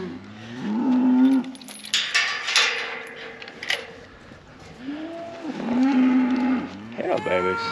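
Cattle mooing at feeding time: several long calls one after another, one of them rougher and raspier about two seconds in.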